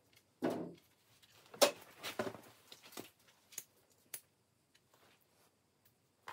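Hand-stitching a birch-bark knife sheath held in a vise: scratchy rustles and light clicks as the needle and thread are pushed and pulled through the bark. They come in a handful of short bursts over the first few seconds, then thin out to a few faint ticks.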